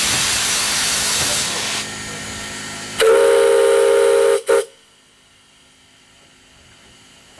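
Narrow-gauge steam locomotive hissing loudly with escaping steam, the hiss easing a little about two seconds in. About three seconds in its steam whistle sounds one long blast of several blended tones, breaks off, gives a short final toot, and then only a faint hiss remains.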